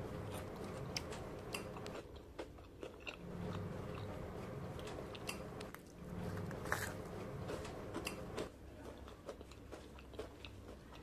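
Crispy fried brinjal (baingan) pakoras crunching: a run of sharp crackles and snaps, with a louder crack about seven seconds in.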